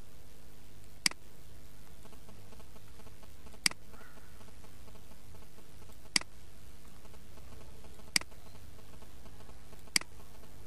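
Computer mouse button clicking five times, a couple of seconds apart, over a steady low hum.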